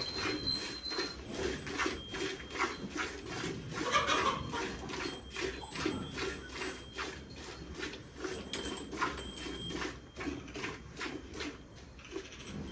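Milk squirting into a steel pail as a Holstein Friesian cow is milked by hand: short hissing spurts in a quick, even rhythm of about two to three a second.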